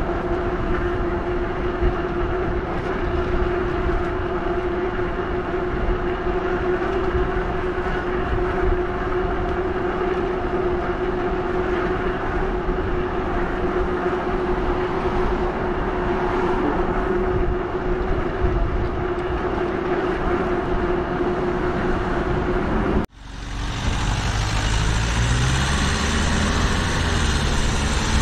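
Lectric XP e-bike's hub motor whining at a steady pitch under a constant rush of wind and tyre noise while riding. About 23 seconds in the sound breaks off abruptly and resumes as wind and low rumble without the motor whine.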